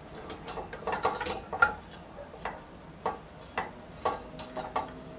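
Glass canning jars clinking and knocking against each other and against the sides of a stainless steel pot as they are shuffled to fit. About a dozen irregular sharp knocks, some leaving a brief ring.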